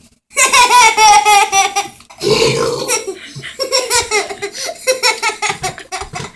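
Young child laughing hard: a long high squealing laugh in the first two seconds, then a run of short, breathy laughing pulses.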